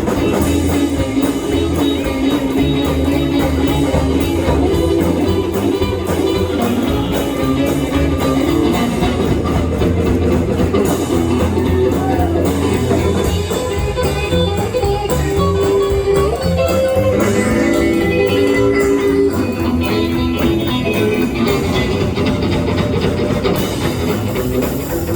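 Live boogie band playing an instrumental break, with guitar lead over bass and a drum kit.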